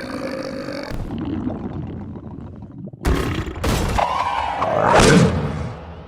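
Cartoon sound effects: a low rumbling noise that sinks away, then after a sudden cut a loud growling creature vocalisation whose pitch slides up and down, loudest about five seconds in.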